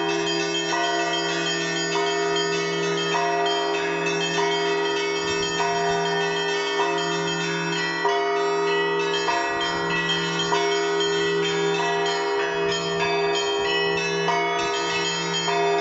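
Russian Orthodox church bells rung by a bell ringer: smaller bells struck in a steady rhythm, about three strokes every two seconds, over the continuous low hum of a larger bell.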